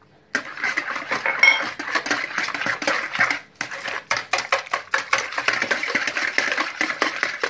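Wire whisk beating a thin liquid batter in a ceramic bowl: a rapid clatter of strokes against the bowl, breaking off briefly about halfway through.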